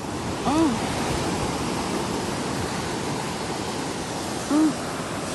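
Sea surf washing steadily onto the shore as a constant rushing hiss. Two short rise-and-fall pitched calls stand out, one about half a second in and one near the end.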